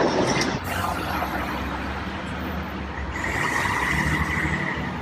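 Mercedes-Benz O405 city bus's diesel engine running steadily, heard from inside the passenger cabin. Loud street noise drops away about half a second in. A steady high whine comes in about three seconds in and lasts nearly two seconds.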